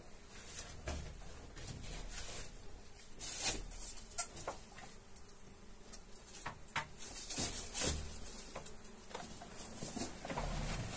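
Dry leaves and debris rustling and crackling as they are handled and stepped on, with scattered sharp knocks and clicks, the loudest at about three and a half and four seconds in and again around seven to eight seconds.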